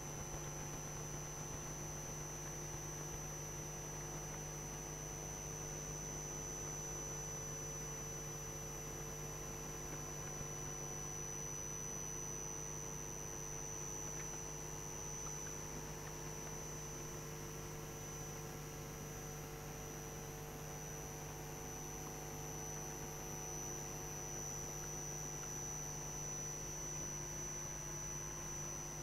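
Steady electrical mains hum in the chamber's microphone feed: several fixed tones, including a low buzz and a thin high whine, over faint room tone, with no change throughout.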